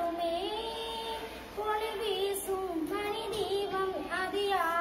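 A young girl singing a Tamil song solo and unaccompanied, holding long notes that slide and step up and down in pitch.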